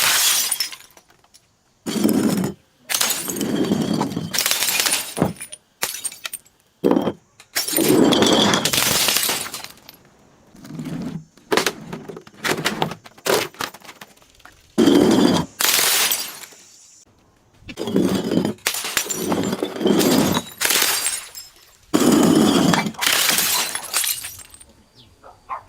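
Glass bottles being crushed and breaking: a series of crunching, shattering breaks, each lasting a second or two, with short pauses between them.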